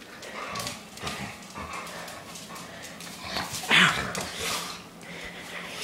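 Puppy playing with a toy ball on a hard floor: scattered clicks and knocks of the toy and its claws, with one short, loud dog vocal sound a little under four seconds in.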